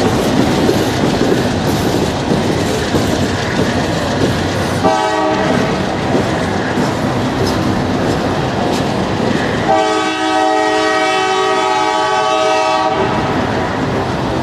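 Freight train hopper cars rolling past with a steady rumble of wheels and clickety-clack over rail joints. The train's horn, on its GE AC4400CW locomotives, sounds a short blast about five seconds in and a long blast of about three seconds near the end.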